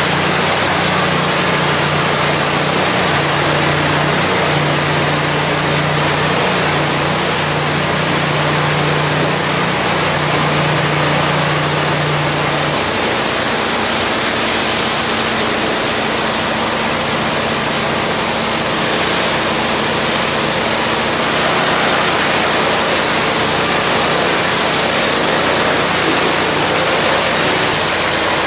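High-pressure water spray from a long wand hissing steadily against a tiled wall, over the steady hum of an engine-driven pump; the hum changes pitch a little under halfway through.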